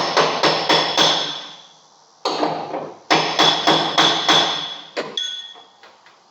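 A hammer striking steel in quick runs of blows, about four or five a second, each blow ringing metallically. It is the hammering used to straighten bent car body or frame metal. There are two main runs separated by a short pause, a single blow between them and another near the end.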